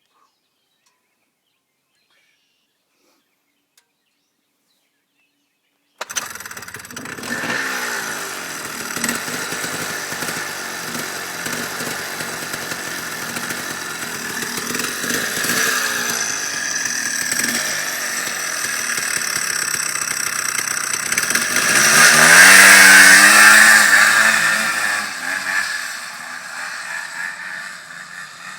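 Silence for about the first six seconds, then a Honda FL350 Odyssey's single-cylinder four-stroke engine cuts in running and revving up and down several times, loudest during a hard rev about two-thirds of the way through.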